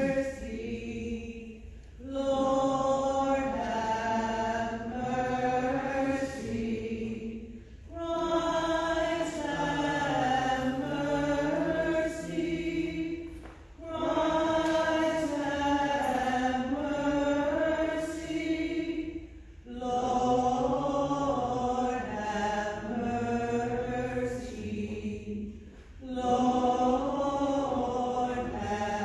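Voices singing a slow liturgical chant in phrases about six seconds long, with a brief pause between each phrase.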